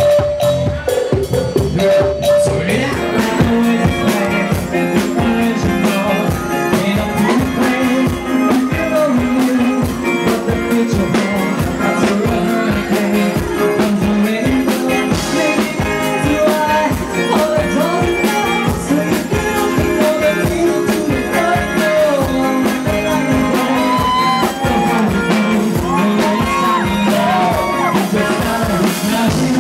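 Live band playing music with a steady drum beat, keyboard and drum kit.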